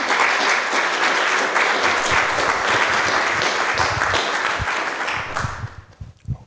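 Audience applauding, a steady patter of many hands clapping that dies away about five to six seconds in.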